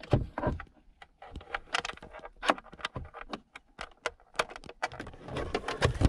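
Irregular light clicks, taps and rattles of plastic parts being handled as a wireless charging pad and its cable are fitted into a car's center console.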